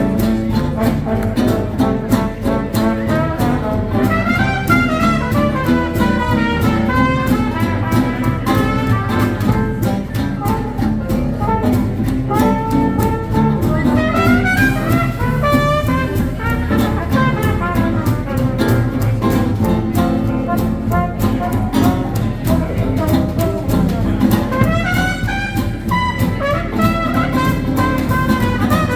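Small hot-swing jazz band playing an instrumental chorus: brass horns carry the melody in phrases over a rhythm section keeping a steady beat.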